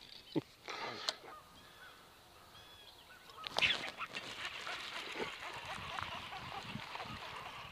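A fishing rod and reel making a cast about three and a half seconds in, a quick whir of line running off the spool, over birds calling in the background.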